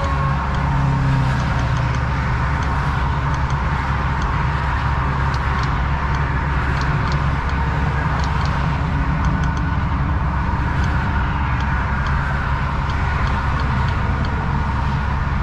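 Volvo semi truck's diesel engine idling steadily, heard from inside the cab, with faint light clicks now and then.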